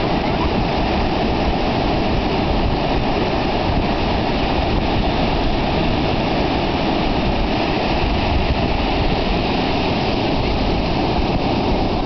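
Steady rushing of ocean surf breaking on the beach, mixed with wind.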